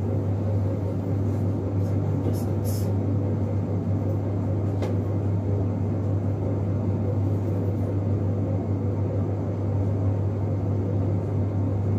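Steady low mechanical hum with a rumbling noise underneath, unchanging throughout, with a couple of faint light clicks a few seconds in.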